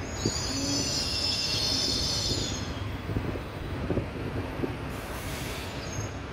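Frecciargento high-speed train moving slowly through the station, its wheels squealing on the rails with several high, piercing tones for the first three seconds or so, over a low rolling rumble. After the squeal fades, a few short clacks of wheels over the track.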